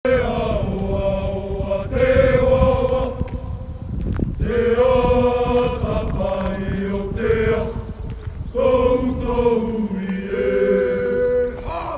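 A group of voices singing a slow song together in long held notes, phrase after phrase, over a steady low rumble.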